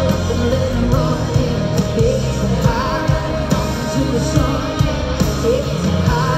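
Live country-rock band playing with a woman singing lead into a microphone over drums, heard loud through a phone from the arena crowd.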